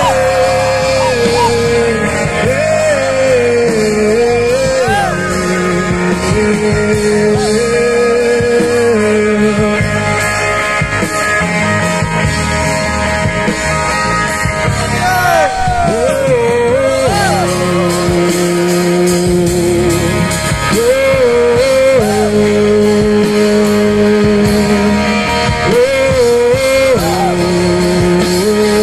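Live amplified band playing a song: lead vocals in long held notes that bend and waver, over acoustic guitar, bass guitar and drums.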